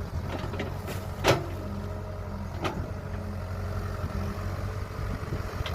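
Kobelco excavator's diesel engine running steadily, with a few sharp knocks, the loudest about a second in and another near three seconds in.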